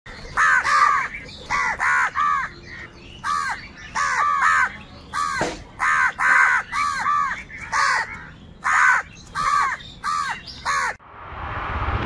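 House crows cawing repeatedly, harsh calls coming singly and in quick runs of two or three. About a second before the end the calls stop and a swelling whoosh begins.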